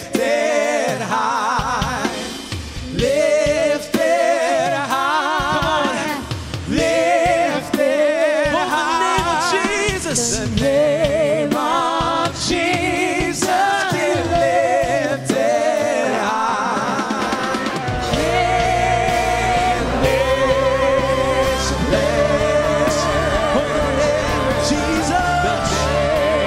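Live worship music: a singer's voice with wide vibrato carrying a slow melody over sparse accompaniment. A steady low accompaniment comes in about two-thirds of the way through.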